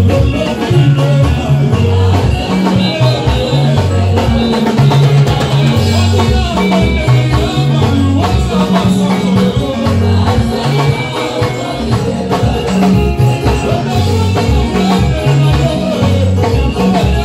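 Live gospel worship music: a praise team singing over a band, with a prominent bass line moving from note to note.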